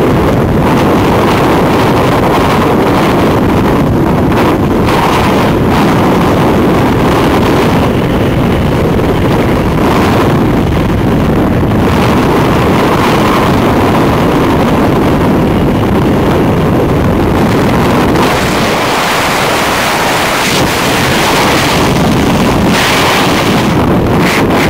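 Loud, steady rush of freefall airflow buffeting a skydiver's camera microphone at terminal velocity.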